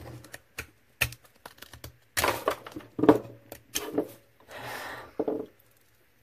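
A folding pocket knife being handled: a run of sharp clicks and knocks, then a short rub about four and a half seconds in.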